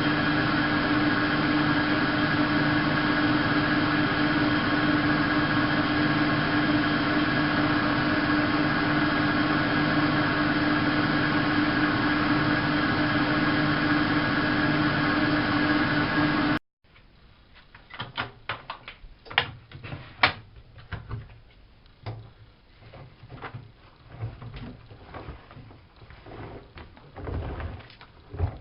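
Bosch WFK 2431 washing machine running with a steady motor hum and a strong low whine. It cuts off abruptly after about 17 seconds, and scattered clicks and knocks follow.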